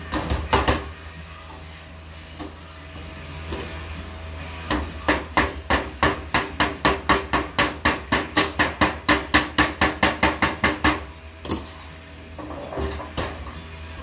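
Quick, even hammer blows on galvanized sheet-metal duct, about four a second for some six seconds, starting about five seconds in. A few sharper clanks of the metal being handled come at the start and near the end.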